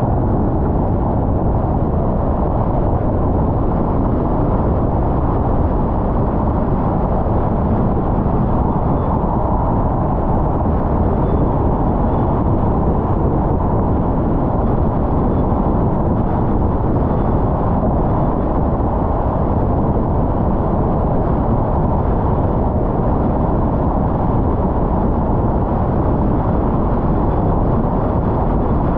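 A car driving at a steady speed: continuous low road and tyre rumble with engine noise, even and unchanging throughout.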